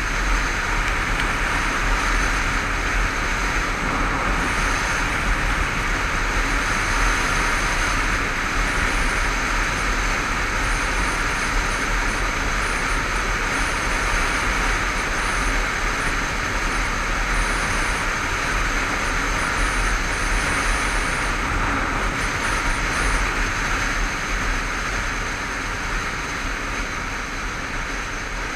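Steady wind rush and road noise on a Honda CBF500 motorcycle riding at speed, with the bike's parallel-twin engine running underneath. It quietens a little near the end.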